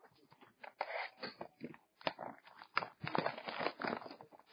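Plastic wrapping crinkling and tearing in irregular crackles as hands unwrap a sealed trading-card box.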